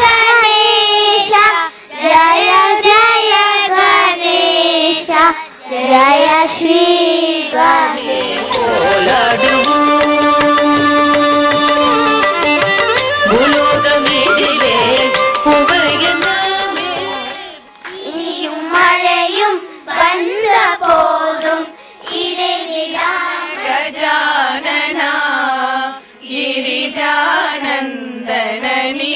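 Carnatic vocal music: a voice singing ornamented, sliding melodic phrases, with a stretch of long, steady held notes in the middle.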